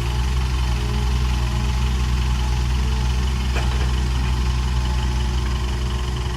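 Heavy diesel engine running steadily at a low, even idle, with a single light click about three and a half seconds in.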